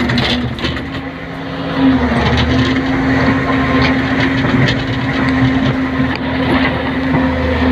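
Hydraulic excavator's diesel engine running steadily under load as seen from the cab while the bucket digs and lifts stones. The engine note dips briefly and then rises about two seconds in. Scattered knocks and clatter come through the engine noise.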